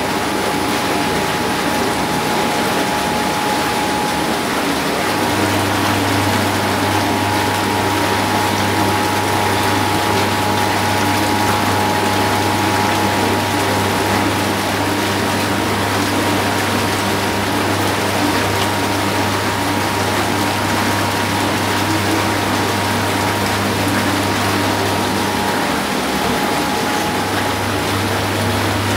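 Whirlpool bathtub running, its jets churning the water into a steady foaming bubble. A pump motor hum runs alongside, and a low hum joins about five seconds in and briefly drops out near the end.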